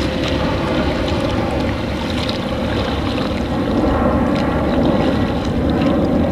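Choppy bay water splashing and lapping against a plastic kayak's hull, with wind buffeting the microphone as a steady low rumble.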